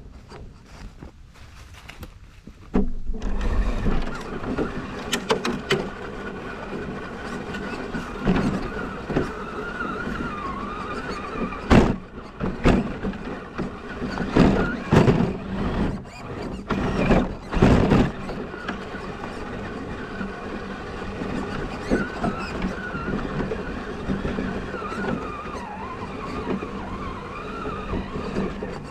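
Scale RC crawler (Element RC Enduro Trailrunner) driving over the trail, heard from a camera mounted on the truck: its electric motor and gears whine, the pitch wavering with the throttle, with several knocks as the chassis and tyres hit rocks. The whine is faint for the first few seconds, then picks up about three seconds in.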